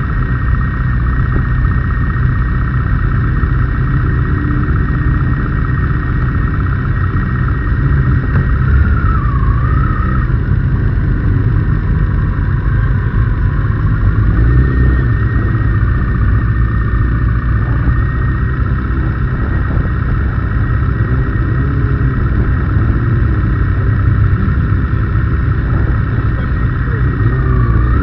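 Race motorcycle engines idling in a queue, the 2009 Kawasaki ZX-6R's inline-four nearest, with the pitch rising and falling now and then as throttles are blipped.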